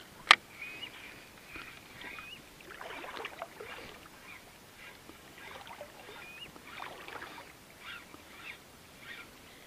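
A single sharp click just after the start, then short bird calls, several ending in a quick upward flick, repeating every second or two over soft scattered crackling.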